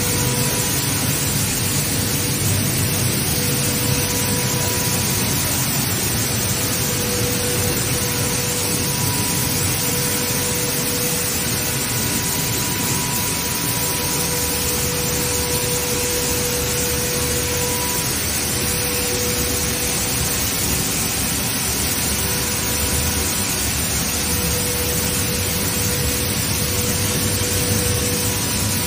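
Flour mill machinery running steadily: a dense, even mechanical noise with a faint steady hum, unchanging throughout.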